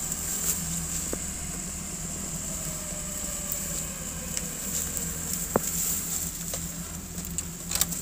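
A vehicle engine idling steadily, with a faint tone slowly falling in pitch through the middle. Footsteps crunch and snap twigs in dry leaf litter now and then.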